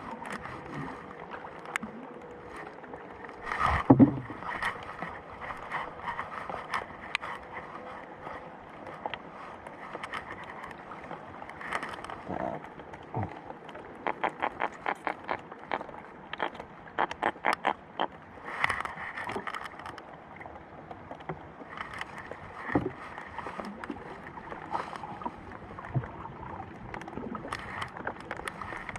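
Knocks and handling noises in a small fishing boat, with a loud thump about four seconds in. In the middle comes a run of rapid, even clicks, about four a second.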